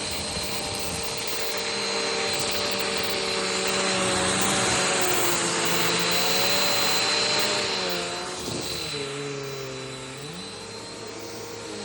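Bissell PowerForce Bagged 1739 upright vacuum running, a steady rushing hiss with a whine, as it picks up oatmeal. About eight seconds in its tones waver and drop lower and it gets quieter, then one tone climbs back up near the end.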